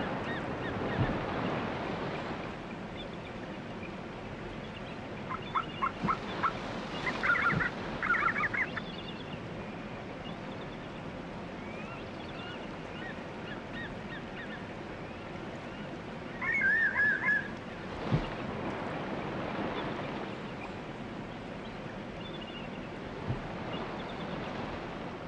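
Bald eagles giving high, rapid chittering calls in three short bursts, about six, seven and sixteen seconds in, squabbling over feeding spots. A steady rush of river water runs underneath.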